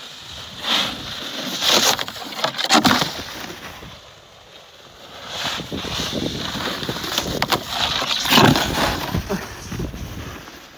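Snowboards scraping and carving over slushy snow, in two long swells as two riders come down one after the other, with a few sharp scrapes and knocks of the board edges.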